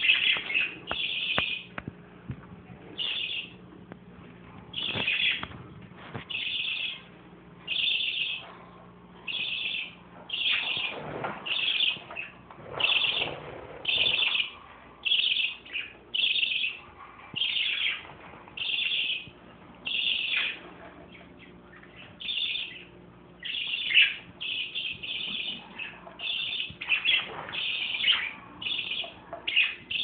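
Pet parakeets (budgerigars) chirping in a cage: one short high call repeated about once a second, fairly evenly spaced.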